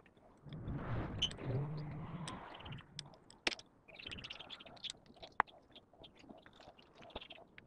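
Faint clicks, ticks and rubbing of small metal parts handled by hand while a small torsion spring is being fitted into a baitcasting reel's frame. There is a muffled rustle in the first few seconds.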